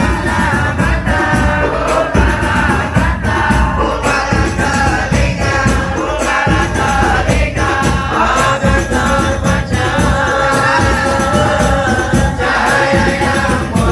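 A group of voices singing salawat, devotional songs in praise of the Prophet, accompanied by frame drums striking a steady rhythm.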